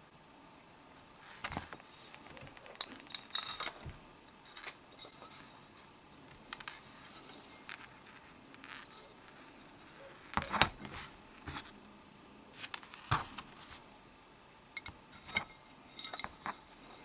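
Small hard clicks and brief rattles of a chalk line box's spool, crank and case parts being handled and fitted back together, the louder knocks coming in the second half.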